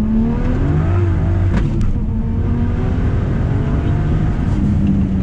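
Modified single-turbo, straight-piped BMW 335i inline-six heard from inside the cabin, running at a steady low drone. The revs rise a little about a second in, and a couple of sharp pops come soon after.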